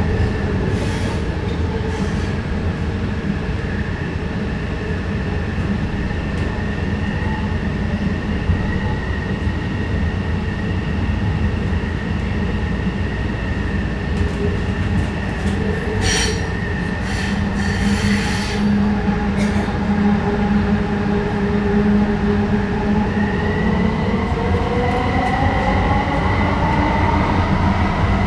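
Vancouver SkyTrain car running along an elevated guideway, with the steady whine of its linear induction motors over wheel and running noise. A few brief clicks and squeaks come about two-thirds of the way through. Near the end the whine rises in pitch as the train speeds up.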